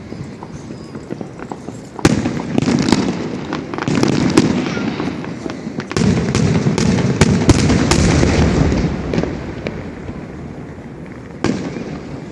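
Fireworks going off: aerial shells bursting with low booms about every two seconds, then a quick run of sharp crackling reports, with a rumbling echo after each burst.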